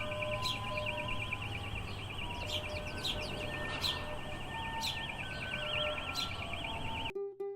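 Birds chirping over a continuous high, fast-warbling trill, with soft held tones stepping slowly from pitch to pitch underneath. Near the end it cuts abruptly to plucked ukulele music.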